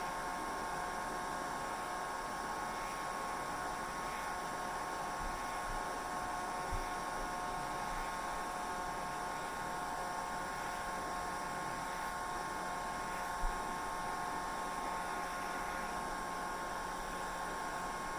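Hair dryer running steadily: an even airflow rush with a constant motor whine. Two faint low bumps come about a third of the way in and about three quarters of the way in.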